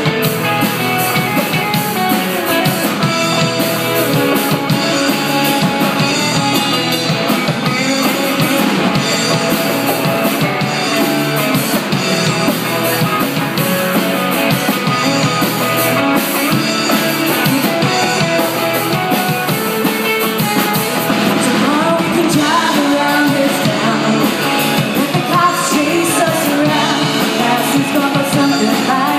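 Rock band playing a song, with a lead singer over drums and guitars.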